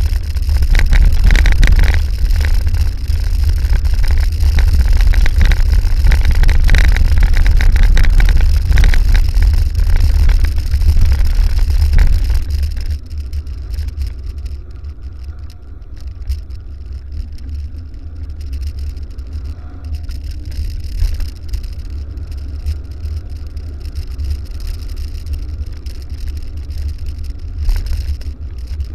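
Wind buffeting the microphone of a camera on a moving bicycle, with the rattle of tyres and bike over a loose gravel track. About 13 seconds in the rattle drops away and the noise grows quieter, as the ride moves onto smoother paving.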